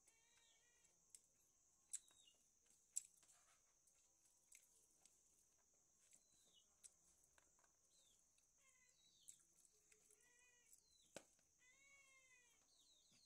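Faint eating sounds of someone eating meat and rice by hand: scattered sharp smacks and clicks from the mouth and plate. A few short, high calls that rise and fall come and go between them.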